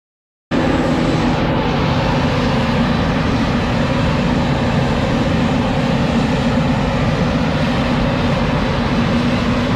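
Claas Jaguar forage harvester chopping maize, a steady dense machinery drone with a low hum that cuts in abruptly about half a second in.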